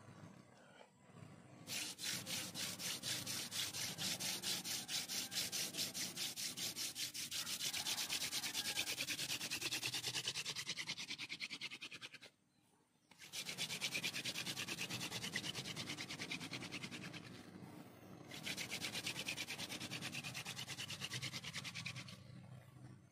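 Hand-drill friction fire: a wooden spindle spun back and forth between the palms, rubbing in a hole in a wooden hearth board with a fast, even rasping rhythm as it grinds out hot wood dust. The drilling comes in three runs, with a pause of about a second about twelve seconds in and a brief one about eighteen seconds in.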